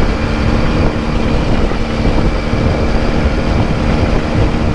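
Benelli TNT 300's parallel-twin engine through a loud aftermarket exhaust, cruising at steady revs, with wind rumble on the microphone.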